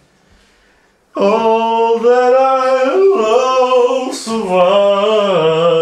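Unaccompanied voice singing wordless, long drawn-out notes that slide up and down in pitch, starting about a second in.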